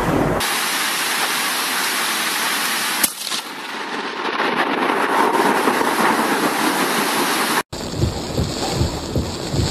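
Heavy rain falling in a steady hiss during a thunderstorm, with one short sharp crack about three seconds in. After an abrupt cut, rain beats on a car windscreen while wind buffets the microphone in irregular low thumps.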